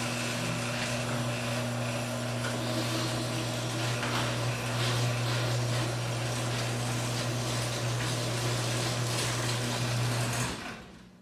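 LiftMaster 8075 garage door opener running, making a steady hiss over a low motor hum. It winds down and stops near the end. The hiss is the weird noise in question.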